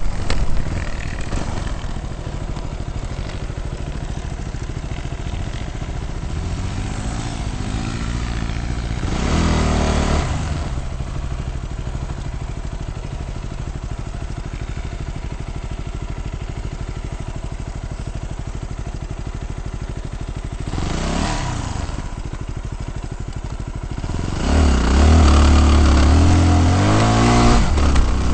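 Off-road vehicle engine running steadily, revving up briefly twice. It gets louder and revs harder near the end.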